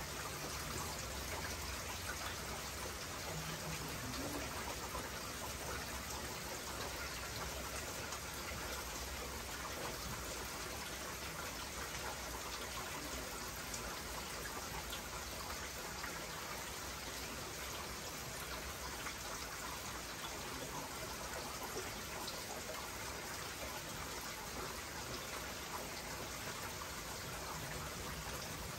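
Heavy rain pouring steadily, an even hiss without a break.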